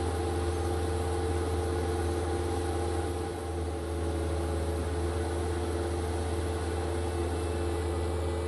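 Bobcat 863 skid steer's diesel engine idling steadily, with a brief slight dip about three seconds in.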